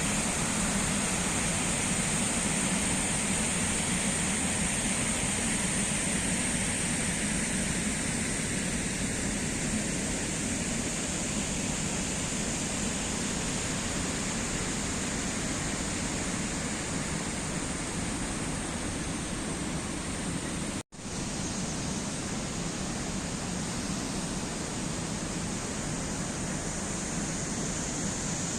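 Jagala waterfall: a steady rush of falling water, even and unbroken apart from a split-second dropout about two-thirds of the way through.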